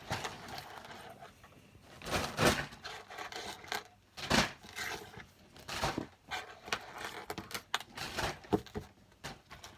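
Irregular crinkling and rustling of a bag, with sharp clicks and light knocks, as squishy toys are handled and packed away.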